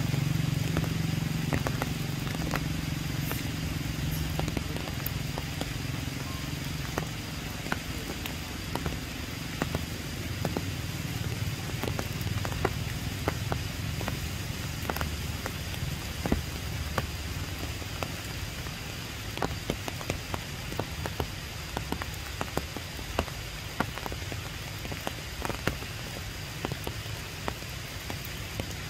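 Rain in the tree canopy: irregular sharp drops tapping close to the microphone over a steady wash of rain and a low rumble that eases over the first few seconds.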